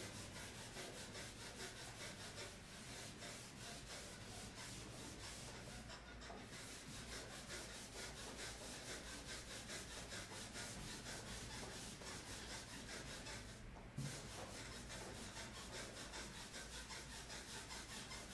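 Chalkboard eraser scrubbing back and forth across the chalkboard in quick, even strokes, about four a second, pausing briefly twice.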